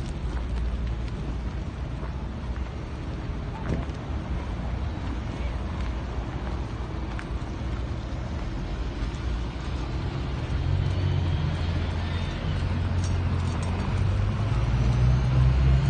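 Street traffic: a steady low engine rumble from road vehicles, growing louder about two-thirds of the way in as a vehicle comes closer.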